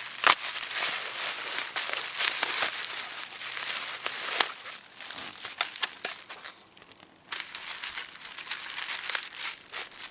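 Packing wrap crinkling, crackling and tearing as a wrapped plaque is unwrapped by hand, with many sharp crackles and a brief lull about two-thirds of the way through.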